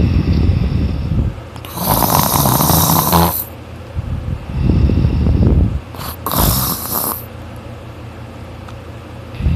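A person sleeping deeply and snoring loudly: deep rumbling snores, three of them, each followed by a hissing breath, in a cycle of about four and a half seconds.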